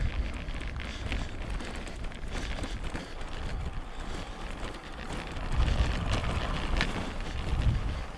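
Wind buffeting the microphone as a steady low rumble, swelling in gusts a little past halfway and again near the end.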